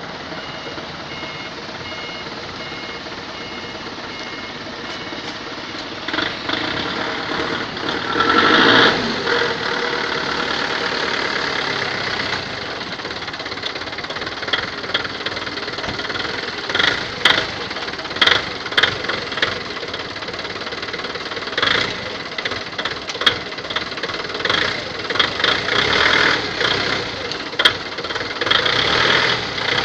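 Ford Focus 2.0-litre AODA four-cylinder petrol engine running steadily, with a brief rise in revs about nine seconds in and sharp clicks now and then through the second half.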